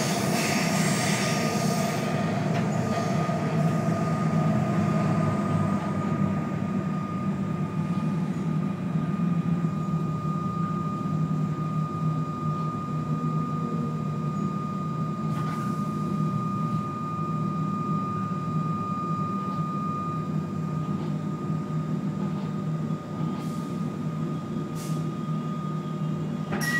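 Comeng electric suburban train running through the underground City Loop, heard from inside the carriage: a steady low rumble with a thin, steady high whine that fades out about three-quarters of the way through, as the train eases into the station.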